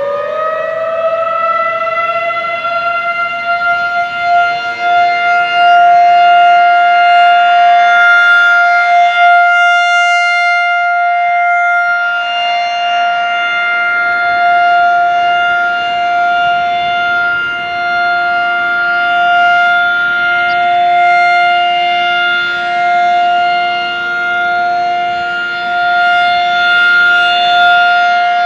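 Federal Signal 2001-SRN rotating outdoor warning siren sounding the steady Alert tone for its weekly test. It finishes winding up to full pitch in the first second, then holds one steady tone whose loudness slowly swells and fades as the siren head rotates.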